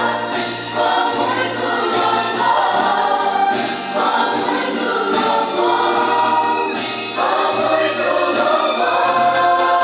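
A group of voices singing a gospel hymn together, in sustained phrases.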